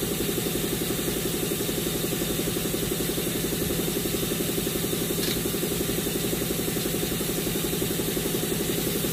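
A machine running steadily at idle: an even, engine-like hum with a fast, regular pulse that does not change.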